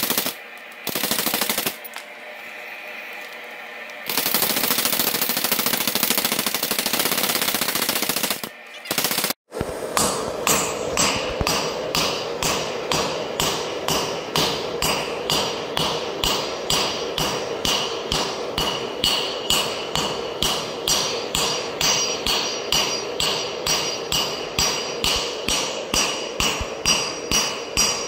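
A hand hammer striking a red-hot steel bar on an anvil, about two ringing blows a second, forging a bevel on the bar. For the first third, before the hammering starts, a dense, steady noise is broken by several abrupt cuts.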